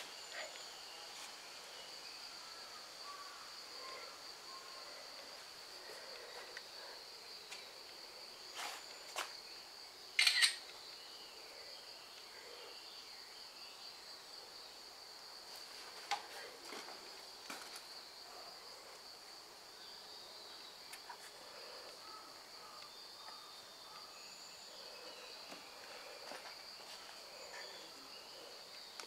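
Insects chirping steadily at a high pitch. A few faint clicks sound, with one brief, louder noise about ten seconds in.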